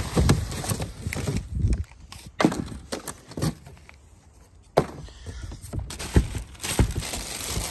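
Cardboard packaging being pulled about and handled, with plastic wrap rustling: irregular scrapes and knocks, quieter for about a second in the middle, then a sharp knock.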